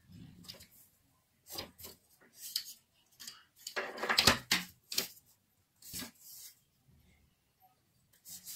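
Clear plastic ruler and set square being slid and set down on drawing paper, with pencil strokes along the ruler: irregular short scrapes and taps, the longest and loudest about four seconds in.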